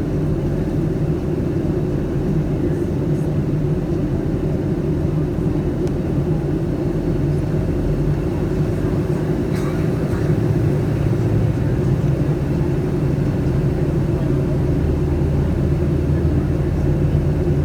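Steady low drone inside the cabin of a Boeing 757-200 on approach to landing: engine and airflow noise, with a few faint ticks.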